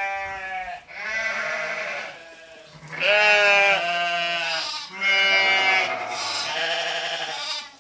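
Repeated sheep-like bleating: about six long, wavering bleats, each around a second, one after another with short gaps.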